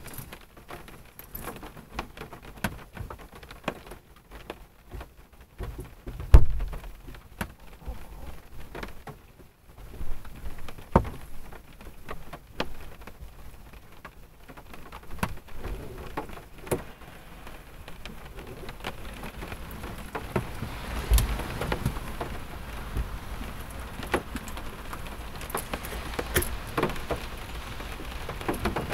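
Rain falling on a car, heard from inside the cabin: scattered drops tapping irregularly on the roof and windshield, with a few louder thuds. The rain grows denser and steadier from a little past halfway.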